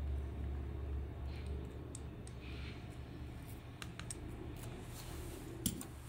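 Light clicks and taps of hands handling a small DC toy motor and a soldering iron while wires are soldered to the motor's terminals, with one sharper click near the end. A low hum under it fades after the first second or so.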